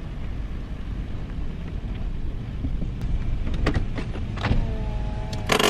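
Steady low rumble of a Toyota car idling, heard from inside the cabin while it waits in a car park. A few light clicks come about three seconds in, a steady hum joins near the end, and there is a single sharp knock just before it ends.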